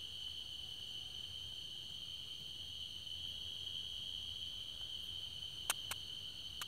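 Crickets trilling in a steady, unbroken high chorus, with two brief clicks about a second before the end.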